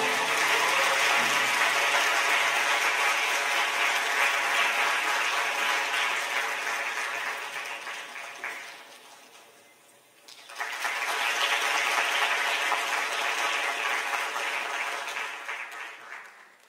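Audience applauding. The clapping dies away to nothing about ten seconds in, starts up again a moment later, and fades out near the end.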